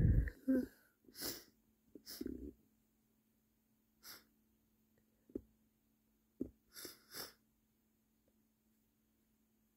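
The tail of a man's stifled sneeze right at the start, then a short voiced catch and a few short, spaced-out breaths, with two faint clicks in between.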